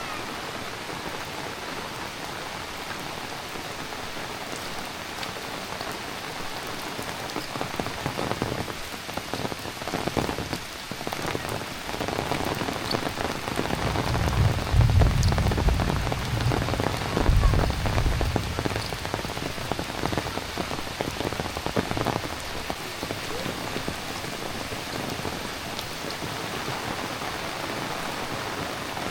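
Heavy rain falling steadily, louder and more splashy through the middle, with a low rumble for a few seconds in the middle.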